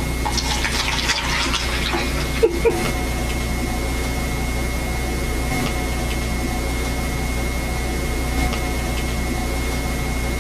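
A steady low hum with hiss throughout, with a light crackling rustle in the first couple of seconds and two small knocks about two and a half seconds in.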